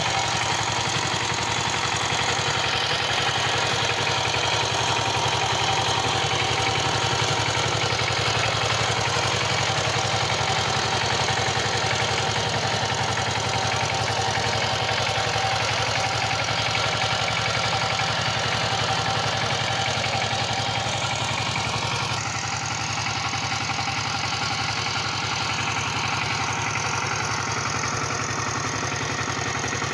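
Power tiller's single-cylinder diesel engine running steadily, a little quieter for the last several seconds.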